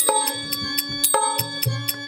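Folk stage music: hand-drum strokes over a quick, even jingling beat, with a held note underneath.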